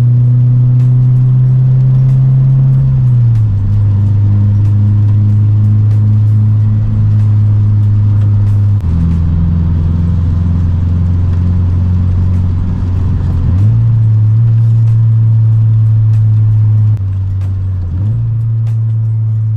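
Cabin drone of a Subaru BRZ's 2.0-litre flat-four engine through an aftermarket exhaust with cannon mufflers, heard from inside the car at steady cruise. The low hum holds one pitch for a few seconds at a time. It drops a little about three seconds in and shifts pitch again a few more times as the revs change.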